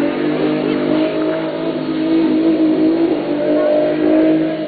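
Infiniti FX35's 3.5-litre V6 held at high, fairly steady revs with a slight waver as the car spins donuts, a loud steady engine drone.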